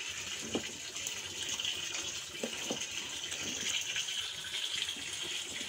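Water pouring and gushing into a plastic tub of water, a steady splashing rush, with a few faint knocks.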